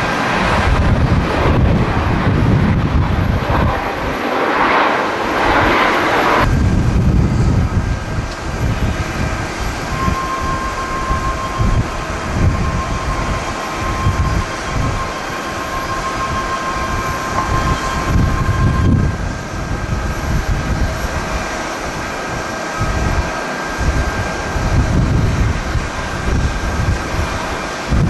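Airliner jet engines running loudly on the runway, cutting off abruptly about six seconds in. A quieter steady jet rumble follows from a Boeing 767 on approach and landing, with gusting wind buffeting the microphone.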